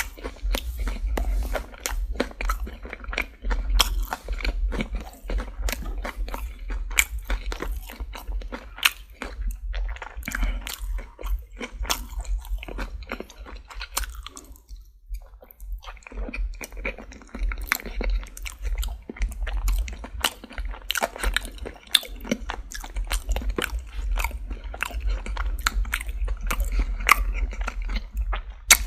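Close-miked chewing of crispy Popeyes fried chicken: dense, crackling crunches of the fried coating, with a short pause about halfway.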